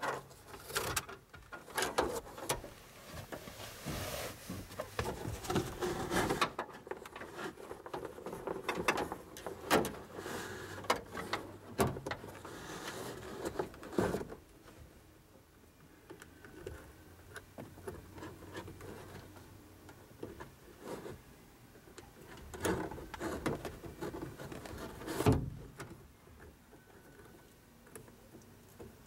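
Steel fish tape being fed out of its plastic reel and pushed through a hole in a truck's headliner: rustling, scraping and rapid clicking, busiest in the first half, then quieter handling with one sharp click near the end.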